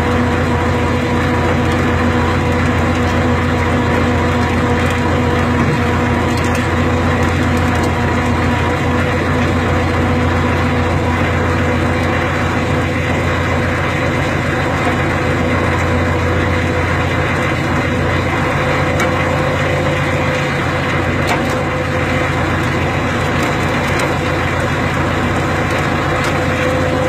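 Engine of a log-skidding winch machine running steadily at constant speed, with a few faint ticks.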